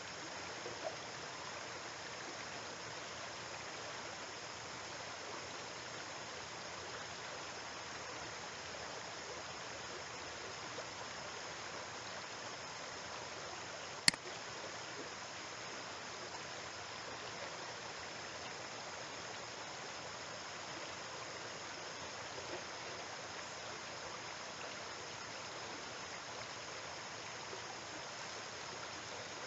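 Steady hiss of background noise, with one sharp mouse click about halfway through.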